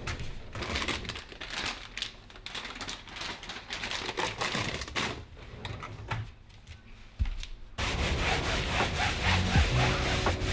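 Cloth and hand rubbing and rustling at a kitchen pull-out drawer, which is pushed shut. Near the end it changes abruptly to brisk scrubbing of a yoga mat with a wipe.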